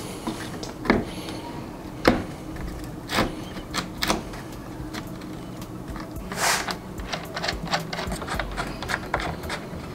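Irregular knocks and clicks of a plastic radiator fan shroud being handled and seated onto a new radiator, with a quick run of small clicks in the second half.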